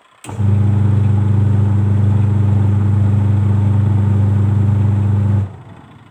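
Twin-tub washing machine's electric motor running with a loud, steady hum on its newly replaced capacitor. It starts abruptly just after the start and cuts off about five seconds later.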